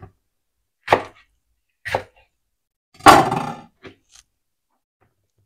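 Kitchen knife cutting red peppers on a plastic cutting board: three sharp knocks about a second apart, then a longer, louder crunch about three seconds in.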